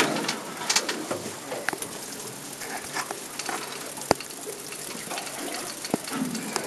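Steady hiss of wind and sea on an open boat deck, with a few sharp clicks and knocks, the loudest about four seconds in.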